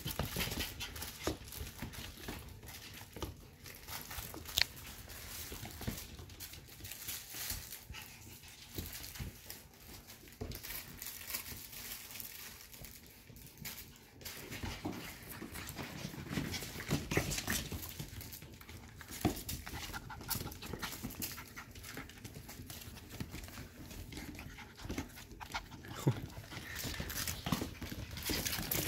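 Eight-week-old F1B mini goldendoodle puppies playing: small dog sounds mixed with many scattered clicks and scuffs as they tussle over plush toys on a hardwood floor.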